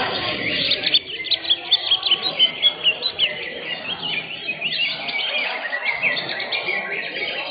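Several greater green leafbirds (cucak hijau) singing at once, a dense run of fast chirps and trills overlapping one another, over a low murmur in the background.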